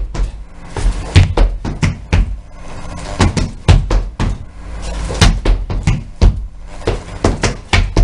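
Sneakers stomping and tapping on a wooden floor in a dance step's repeating rhythm: a heel-toe bounce of heavy low thumps with lighter taps between them, about two heavy thumps a second.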